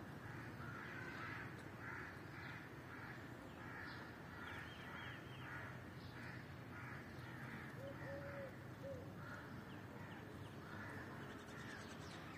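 Crows cawing, faint and over and over, with a few short high bird chirps and a couple of short low whistled notes about eight seconds in.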